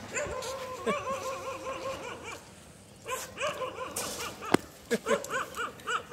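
Young dog whining in quick, high, rising-and-falling whimpers, several a second, in two runs with a short pause between. A single sharp knock about three-quarters of the way through.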